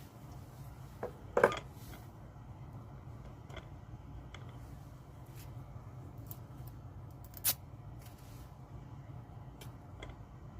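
Small hand tools and parts being handled, giving scattered sharp clicks and knocks over a low steady hum. The loudest knocks come about a second and a half in, and another about seven and a half seconds in.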